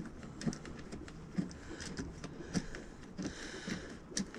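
Small, irregular clicks and taps of hand work: a fastener is being started by hand and finger-tightened, with parts knocking lightly as they are handled.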